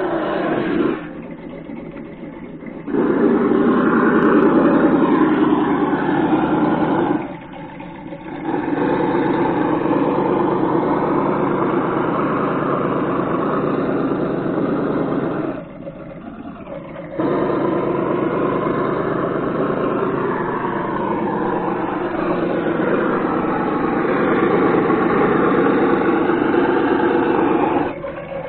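Traxxas Summit RC truck's engine-sound simulator playing a revving engine note that rises and falls with the throttle, dipping to a quieter idle three times.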